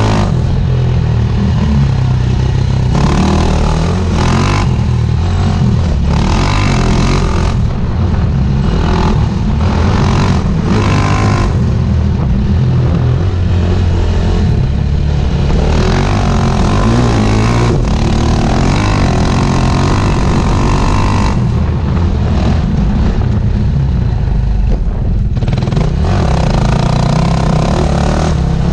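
Off-road motorcycle engine running hard on a dirt trail, its revs rising and falling as the rider opens and closes the throttle, heard on board together with heavy wind and track noise.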